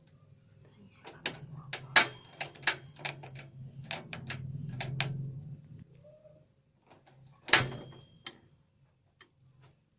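Kitchen utensils and dishes being handled: a quick run of sharp clicks and clinks, then one louder knock, over a low steady hum.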